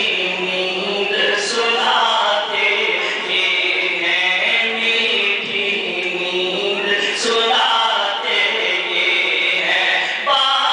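A man's voice chanting an Urdu naat, a devotional poem in praise of the Prophet, unaccompanied, with long held, melismatic notes, amplified through a podium microphone.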